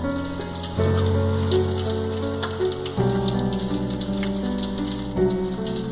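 Crushed garlic, mustard seeds and cumin sizzling and crackling in hot oil in a pan, over background music of held chords that change about a second in and again about halfway.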